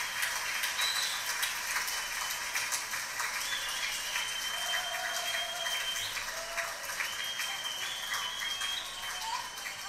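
Audience applause from a recording played back through loudspeakers, a dense crackle of clapping with a few faint held high tones over it.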